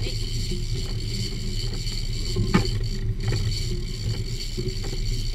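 Sportfishing boat's engine running with a steady low rumble. Occasional light knocks sound over it, the loudest about two and a half seconds in.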